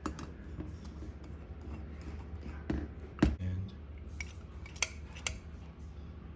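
Small steel check ball rattling in the accelerator-pump passage of a Ford Motorcraft 2150 carburetor under the hollow screw, heard as irregular light metal clicks and taps with a louder knock about three seconds in. The rattle shows the oversized replacement ball still has room to move.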